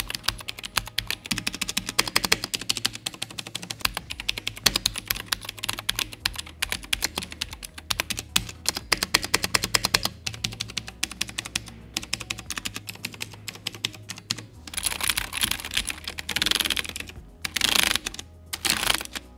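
Womier K87 mechanical keyboard with clicky blue switches being typed on quickly with both hands: a dense, uneven stream of key clicks. In the last five seconds the clicking gives way to three longer stretches of rustling noise.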